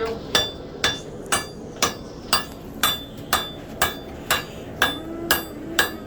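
A hand hammer striking hot steel on an anvil in a steady rhythm, about two blows a second, each with a short metallic ring, as a forged blade is evened out.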